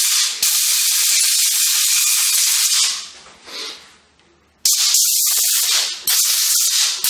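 Compressed-air blow gun hissing in bursts, blowing metal chips out of a pistol's freshly cut lower barrel lugs: one long blast of about three seconds, then several short blasts in quick succession near the end.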